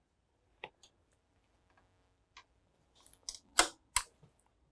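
Scattered small metallic clicks and taps as the transfer-finger rod on a Linotype's transfer slide is pushed back into place, a few light ones at first and two louder knocks about three and a half and four seconds in.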